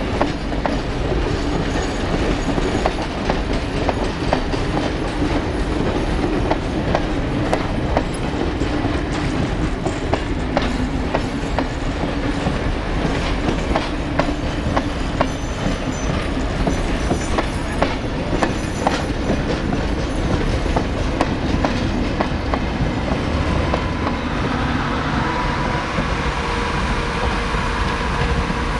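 Heritage passenger train carriages rolling steadily past, their wheels clicking rhythmically over the rail joints. A steady whine joins in near the end as the last carriage draws away.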